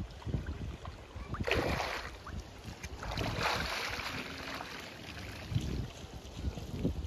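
Water sloshing and splashing as a person wades through waist-deep water and steps up out of it, with louder splashes about one and a half and three and a half seconds in. Wind rumbles on the microphone.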